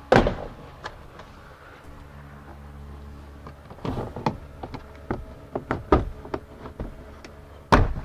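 Plastic push-pin clips of a sliding door's interior trim panel popping out as the panel is pulled loose along its bottom edge. A sharp pop comes at the start and another near the end, with a run of smaller clicks and knocks of the plastic panel in between.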